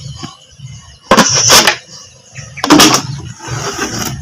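A PVC-pipe eel trap and its plastic-bottle funnel being handled, making two bursts of noise: a short one about a second in and a longer one from about two and a half seconds on.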